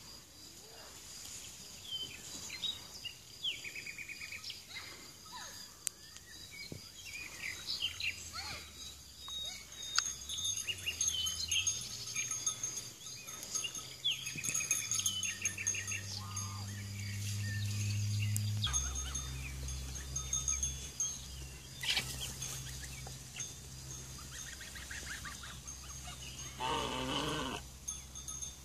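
Farmyard ambience: birds chirping in short calls over a steady high insect drone, with a low steady hum from about a third of the way in. Near the end a louder call from a goose.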